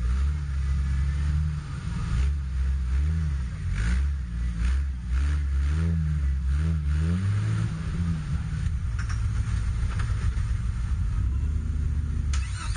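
Jeep Wrangler engine working under load as the 4x4 crawls over an off-road ledge, the revs rising and falling several times in the middle, then settling back to a lower, steadier running.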